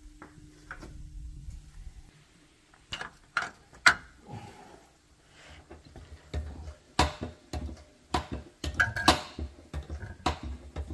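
Sharp metallic clicks, clanks and knocks of hand tools and a pail, from work at a differential fill plug. A low steady hum stops about two seconds in.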